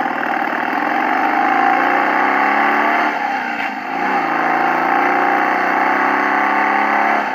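Motorcycle engine sound effect, running and revving. It dips briefly about halfway through and cuts off abruptly at the end.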